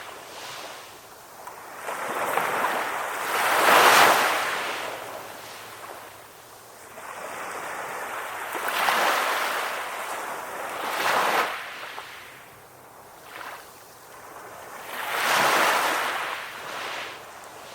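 Small ocean waves breaking gently on a beach, one after another every few seconds. Each wave is a rushing hiss that swells and then dies away, the loudest coming about four seconds in.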